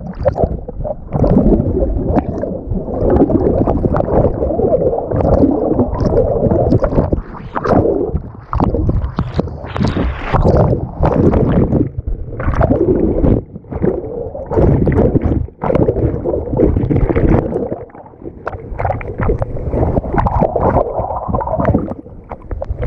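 Whitewater rapids churning and gurgling around a kayaker swimming after being thrown from an inflatable kayak. The sound is muffled and rumbling, as heard with the microphone going under the water, and rises and drops irregularly.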